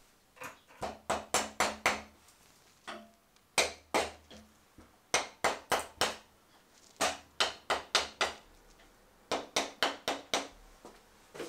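Rubber-faced hammer tapping the cylinder head of a 2005 BMW R1200GS boxer engine to break it free of the cylinder after its bolts are out. The taps come in short runs of four to six quick strikes with brief pauses between.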